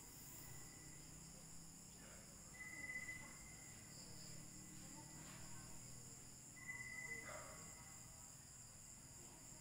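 Faint chorus of crickets and other night insects trilling steadily, with two brief louder high notes about three and seven seconds in.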